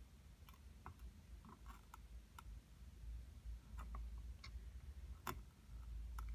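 Faint, irregular ticks and crackles from a soldering iron and copper desoldering braid drawing solder off the pads of an LED circuit board, with one sharper tick about five seconds in.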